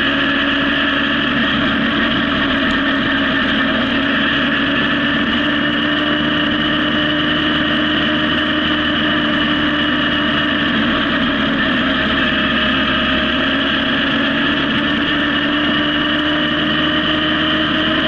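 Honda CB750 inline-four motorcycle engine running at a steady cruising speed, its note holding nearly level, heard from the bike itself.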